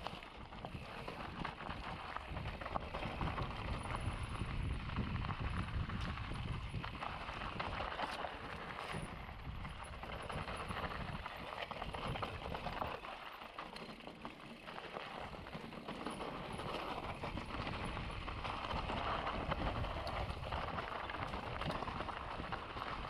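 Mountain bike running down a rough enduro trail: tyres rolling and clattering over rocks and dirt, with the bike rattling over the bumps.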